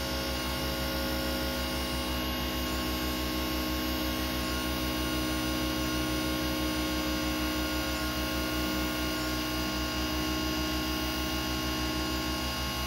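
Electric-over-hydraulic boat lift's pump motor running steadily as it raises the loaded platform: an even hum with a fast low pulsing.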